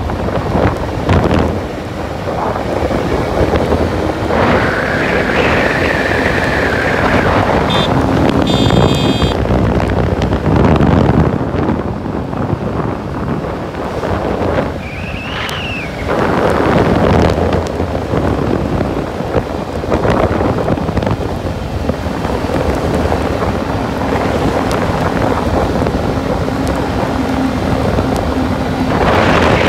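Wind buffeting the microphone over the running noise of a vehicle moving along a wet road, steady and loud throughout.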